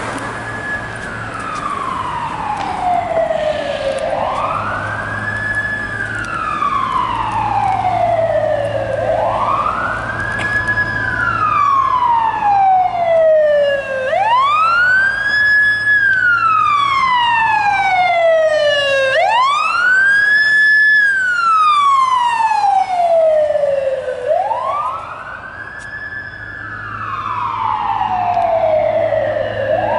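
Fire rescue vehicle's siren on wail, sweeping up quickly and falling slowly, about every five seconds. It grows loudest as the rig passes near the middle.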